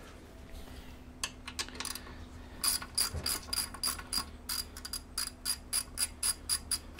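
Ratchet wrench clicking in short strokes, a few scattered clicks and then a steady run of about three clicks a second, as the nuts at the bottom of a 1970 Honda CL350's fork leg are worked loose.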